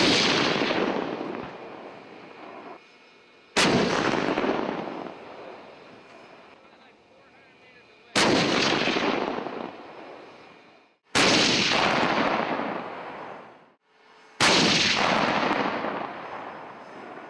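Sound-effect booms like heavy cannon shots: five loud hits, one every three to five seconds, each starting suddenly and fading out over two to three seconds.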